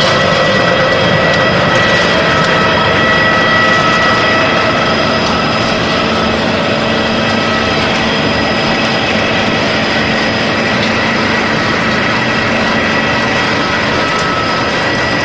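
Sawdust pellet press machine running: a loud, steady industrial drone with a few steady whining tones held over it.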